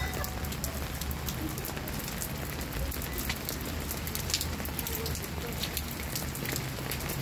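Steady rain falling on wet pavement, with many sharp individual drops and drips splattering close by.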